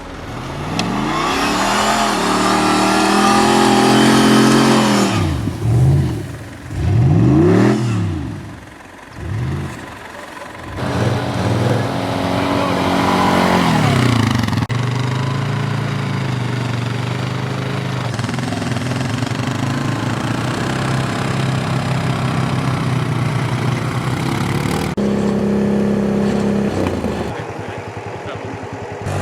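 Off-road 4x4 engine revving hard, its pitch swinging up and down several times in quick succession, then running at steadier high revs. The sound changes abruptly a few times.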